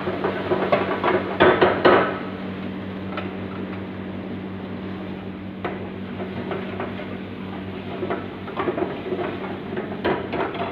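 A metal ladle clattering and scraping against a wok while stirring, in quick runs of knocks during the first two seconds and again near the end, with scattered single knocks between. A steady low hum runs underneath.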